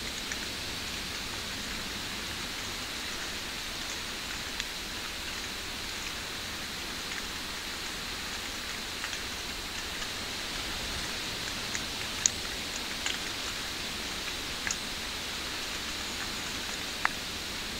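Steady even hiss of outdoor ambience with a few scattered sharp ticks, the loudest about twelve seconds in and another near the end.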